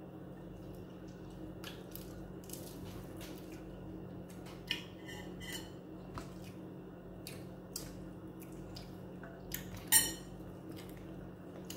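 Scattered light clinks and taps of a fork and fingers against a metal serving tray and plates during a meal, with one sharper clink about ten seconds in, over a steady low hum.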